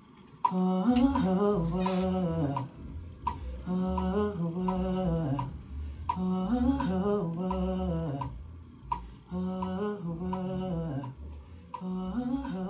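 A man's voice humming a wordless 'ooh' melody that rises and then falls. The same phrase repeats about every three seconds, four times.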